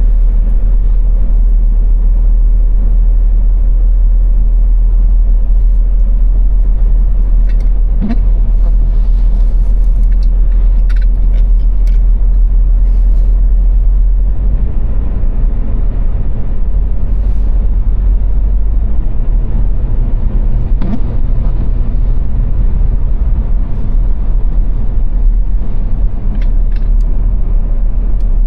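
A car cruising at motorway speed on the Autobahn: a steady, heavy low rumble of road and engine noise, with a few brief ticks.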